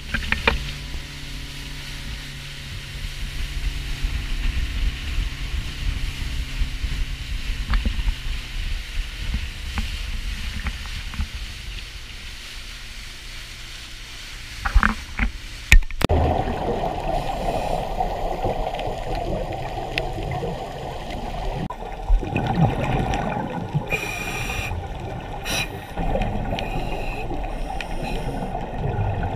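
A dive boat's motor running at speed, with wind and spray on the microphone. About sixteen seconds in it switches abruptly to muffled underwater sound inside a camera housing, with a few bursts of a scuba diver's exhaled bubbles.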